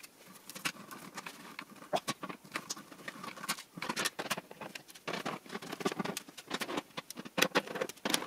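Irregular small clicks, taps and rustles of hands unplugging cable connectors and handling an LCD TV's power supply board.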